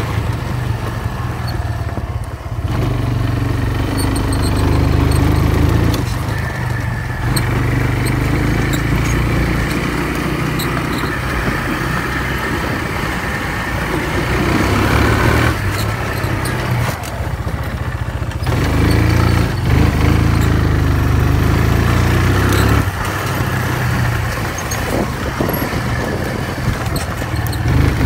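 ATV (four-wheeler) engine running at speed, its pitch rising and falling with the throttle as it is ridden over rough ground.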